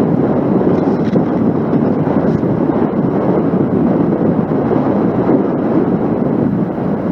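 Strong wind buffeting the microphone: a loud, steady, rumbling rush with no distinct events.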